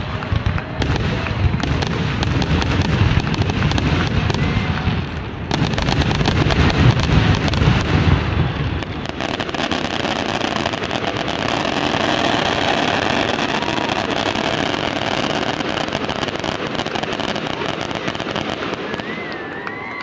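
Fireworks finale: a rapid, continuous barrage of booms and crackles. The deep booms thin out after about nine seconds, leaving a steady crackling hiss.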